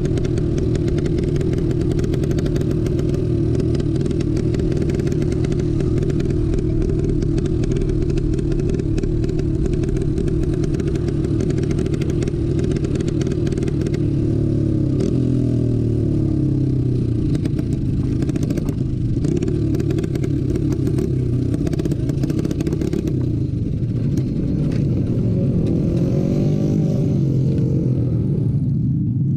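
Racing kart's engine running close to the microphone at moderate revs, the pitch sliding down and back up in the middle and falling again near the end as the kart slows to a stop.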